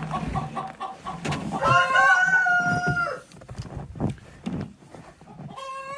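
A rooster crows once, a long steady call starting about a second and a half in, with chickens clucking around it and a short call near the end.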